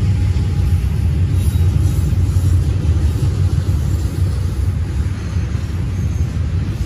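Double-stack intermodal container freight train rolling past, a steady low rumble of its cars on the rails.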